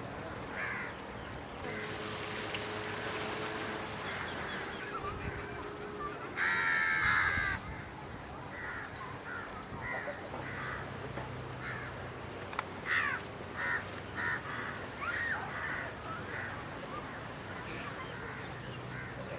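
Crows cawing repeatedly, with one loud harsh caw about six and a half seconds in, over a steady outdoor background.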